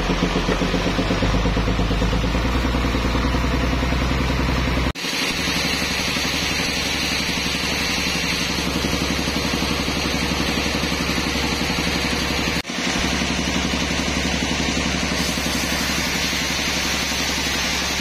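Band sawmill machinery running steadily, its engine pulsing quickly at first, with the blade cutting through a trembesi (rain tree) log near the end; the sound breaks off and changes abruptly twice.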